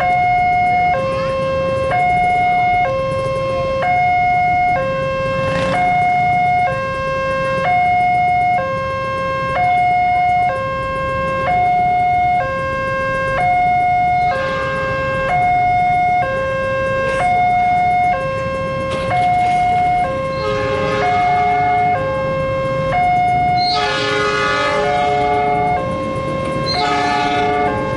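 Level-crossing warning alarm sounding steadily, alternating between a higher and a lower electronic tone, each held about a second, signalling a train approaching. Toward the end the approaching diesel locomotive blows its horn, faintly at first and then in two loud blasts a few seconds apart.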